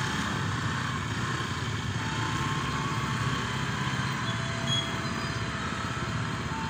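KRL Commuter Line electric train approaching along the track, a steady rumble with a few faint, thin, high squeals.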